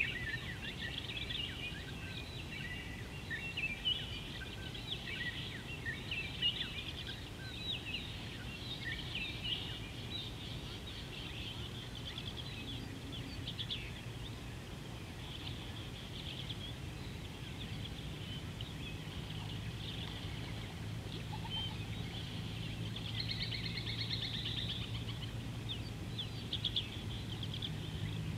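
Many small birds chirping and calling, thickest in the first half, over a steady outdoor background. From about two-thirds of the way in, a low steady hum joins.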